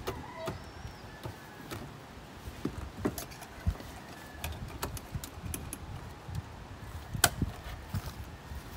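Scattered knocks and clicks as the plastic hull and seats of a Porta-Bote folding boat are pressed and snapped into place during assembly, with a sharper knock about seven seconds in.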